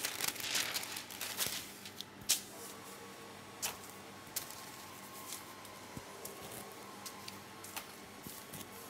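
Sheet of baking paper being laid on a metal baking tray and smoothed flat by hand, pressed onto dabs of macaron mix so it stays put: rustling and brushing, busiest in the first two seconds, with a few sharp taps. A faint steady hum sits underneath.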